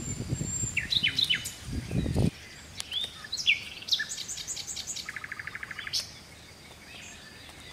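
Birds calling: short falling chirps, quick sweeping whistles, a run of high repeated notes and a fast rattling trill. A low rumbling noise runs under the first two seconds and cuts off abruptly.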